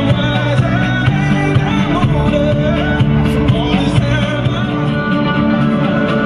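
Background music: a song with singing over a steady band accompaniment.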